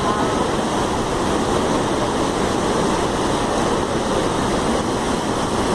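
Waterfall: a constant rush of falling water, steady and loud.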